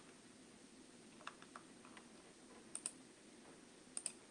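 Quiet room tone with about six faint computer clicks, some in quick pairs.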